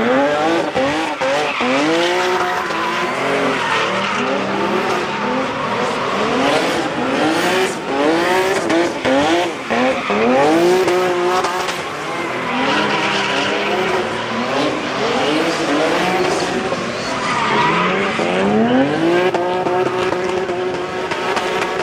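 Drift cars sliding sideways: engines revving up and dropping back again and again, over the steady screech of tyres spinning and squealing through the slides.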